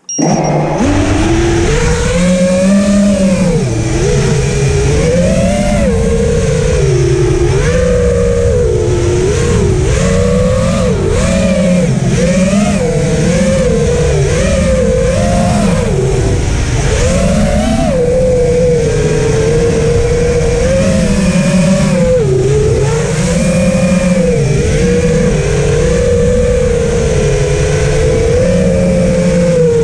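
FPV quadcopter's electric motors and propellers heard from the on-board camera: a loud whine that keeps rising and falling with the throttle, over heavy prop wash and wind rush. The pitch holds steadier in the second half.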